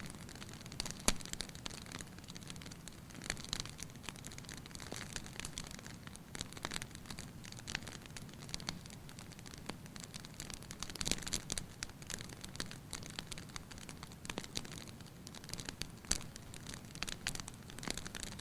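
Fireplace fire crackling: a steady hiss with irregular sharp pops and snaps, one loud pop about a second in.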